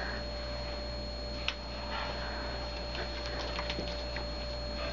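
Steady electrical hum with a faint high whine over room tone, broken by one sharp click about a second and a half in and a few faint ticks later.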